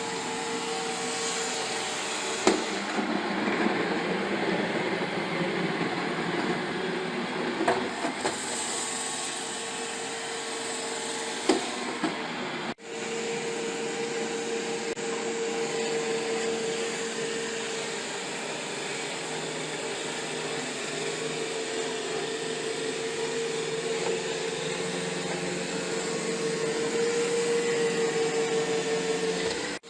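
iRobot Roomba i7+ robot vacuum running, a steady motor whir with a constant mid-pitched whine, and a few sharp knocks scattered through the first half.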